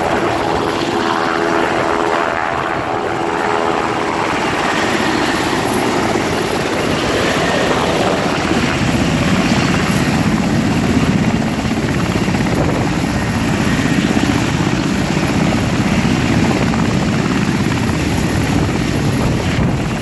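Military helicopter running, a loud, steady rotor beat. Evenly spaced tones ride over it in the first few seconds, and the beat grows heavier in the low range from about halfway through.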